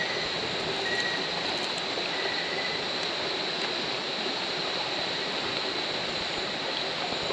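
Night rainforest ambience: the steady rush of a creek, with a continuous high-pitched drone of night insects and a few short faint chirps over it.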